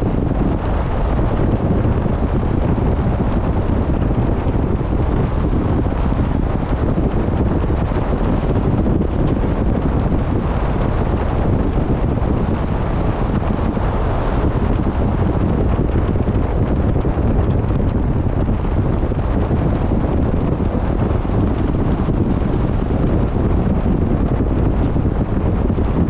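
Wind blowing steadily across the microphone aboard a vessel at sea: a dense, unbroken low rumble with a hiss above it and no distinct events.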